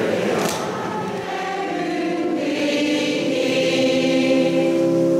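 Church congregation singing together, moving into long held notes that swell over the second half.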